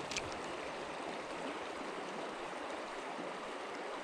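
Creek water running steadily over rocks, with one light click just after the start.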